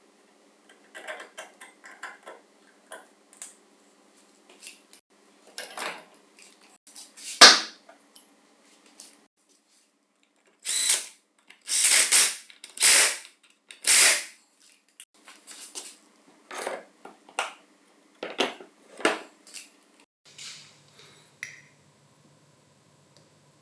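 Hand tools and small metal parts being worked at a bench: a run of light clicks and taps, a sharp knock about seven seconds in, then four or five short hissing bursts around the middle, followed by more ticking.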